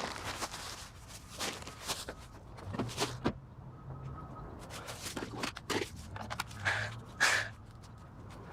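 Irregular footsteps and rustling handling noises, with two louder rustles about two-thirds of the way in.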